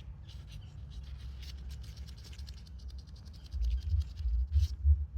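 Handling noise from a hand-held phone: a low rumble that turns into louder low bumps about three and a half seconds in, with faint scratchy ticks.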